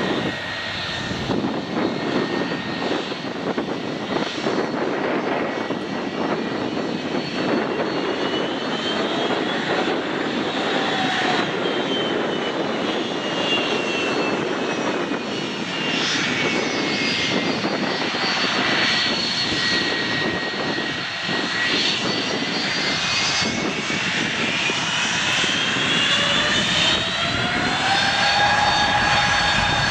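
Boeing 757-200's Rolls-Royce RB211 turbofans running at low thrust as the airliner taxis and turns on the runway: a steady rush with whining tones that drift up and down in pitch. Over the last few seconds the whine climbs in pitch as the engines begin to spool up for take-off.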